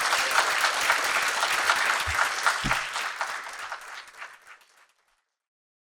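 Audience applauding at the end of a talk. The clapping thins out and fades away about five seconds in.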